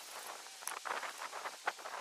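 Rustling and scraping of a bow-drill set and dry leaf litter as it is handled, in short irregular scuffs, with one sharp click about two-thirds of the way through.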